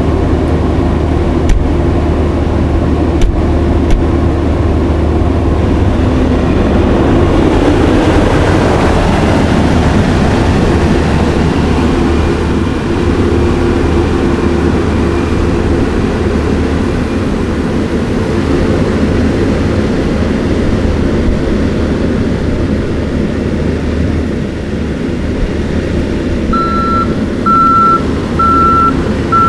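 Kioti skid steer's engine running steadily under load, its note swelling and easing as it works. Near the end its reversing alarm starts, a string of short, evenly spaced beeps.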